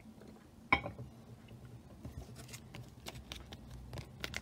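Handling sounds of a trading card being slid into a clear plastic card sleeve: one sharp tap less than a second in, then faint crinkles and small clicks that grow busier near the end.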